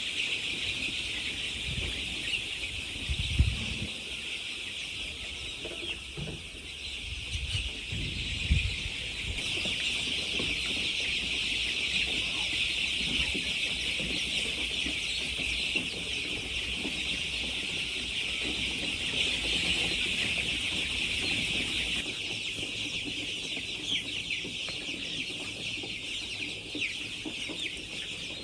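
Chickens clucking over a steady, high-pitched buzzing drone, with a few low thumps in the first nine seconds.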